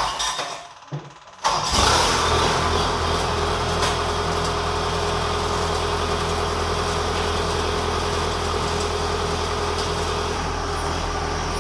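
Kubota DC-105X combine harvester's diesel engine catching about a second and a half in, then running steadily at idle.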